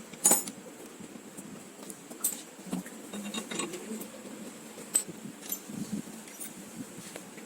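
A few sharp metallic clicks and clinks at irregular moments, the loudest about a third of a second in and another at about five seconds, over a low steady background.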